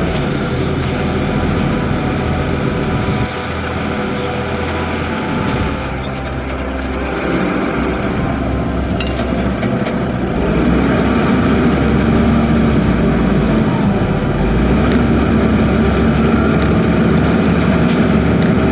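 Kato mobile crane's diesel engine running while the crane hoists jumbo bags of palm kernel. It gets louder and picks up speed about ten seconds in as the load comes up on the hook.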